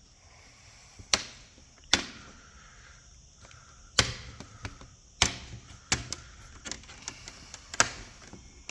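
Plastic clips of a laptop's screen bezel snapping loose one after another as the bezel is pried off: about half a dozen sharp snaps at uneven intervals, with lighter plastic clicks and creaks between them.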